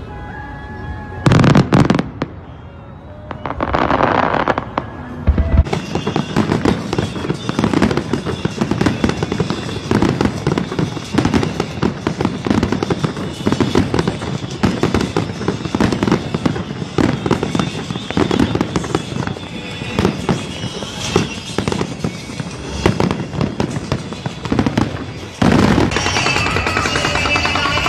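Fireworks display: a few separate bursts in the first seconds, then from about six seconds in a dense, continuous barrage of bangs and crackling.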